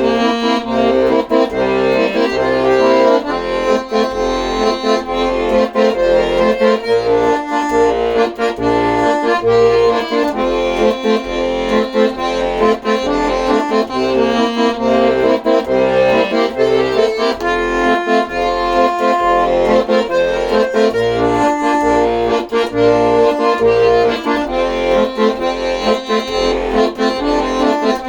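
Accordion music: a melody over held chords, with short bass notes pulsing steadily underneath.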